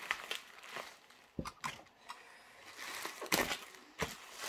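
Plastic bubble wrap crinkling and rustling as hands pull it off a boxed model locomotive, with several sharp crackles in the middle and near the end.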